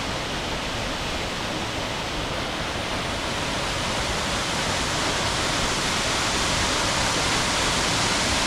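Steady rush of flowing water, growing slightly louder over the seconds.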